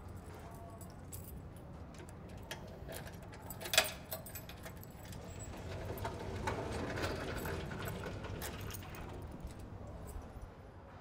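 A bunch of keys jangling and clicking against a door lock, with one sharp click about four seconds in and a run of small metallic clicks and rattles a little later.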